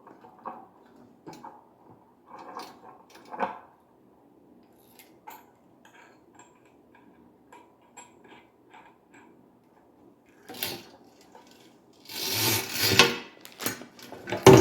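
Shower head and filter parts being handled and fitted together: small clicks and knocks of plastic and metal, then louder rubbing and rattling in the last few seconds.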